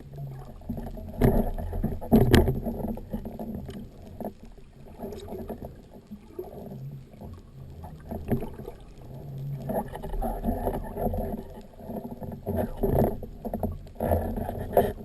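Water churning and sloshing around an action camera's waterproof housing, with two sharp knocks about a second and two seconds in, and rougher splashing near the end.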